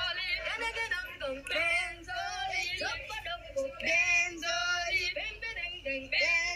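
A woman singing in a high voice with a wavering vibrato, phrase after phrase.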